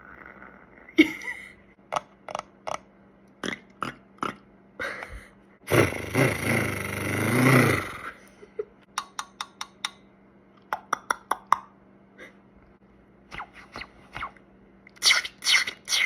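Mouth sound effects made in beatbox style: a string of sharp clicks and pops, a loud rushing, breathy sound of about two seconds starting about six seconds in, then more quick clicks and two louder bursts near the end.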